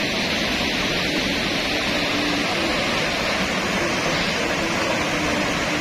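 Muddy floodwater rushing through dam sluice gates and over a weir: a steady, loud wash of turbulent water, with a faint broken hum underneath.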